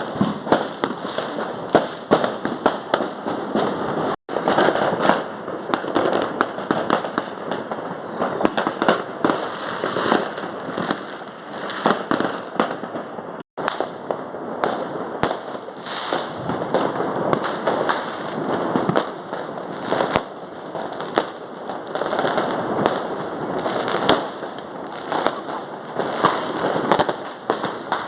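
Many fireworks and firecrackers going off at once across a neighbourhood: a dense, unbroken run of overlapping bangs and crackling. The sound drops out completely for an instant twice, about four and thirteen seconds in.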